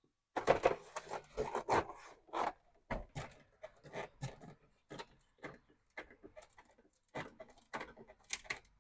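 Irregular clicks, knocks and short scrapes of a plastic truck door panel and power window switch being handled and turned over.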